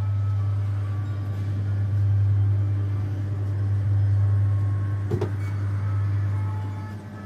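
A Budgie the Little Helicopter coin-operated kiddie ride running in motion with a steady low hum from its mechanism, and a single knock about five seconds in. No ride music or sound effects play, a known fault of this ride.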